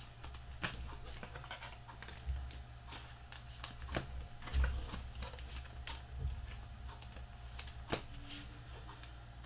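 Trading cards handled on a table: scattered light clicks and taps, with a few dull thumps.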